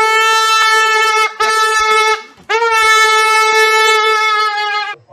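A horn blown in two long, steady blasts on one unchanging note, the first with a brief break a little over a second in.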